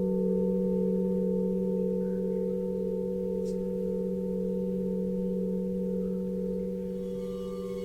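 Singing bowls holding a few long, steady pure tones with a slow wavering beat between them, gently fading; about seven seconds in a higher, brighter ringing tone joins.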